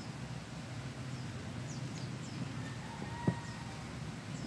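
Steady low background hum with a few faint high chirps, and one sharp tap a little past three seconds in as the cream carton is set down on the table.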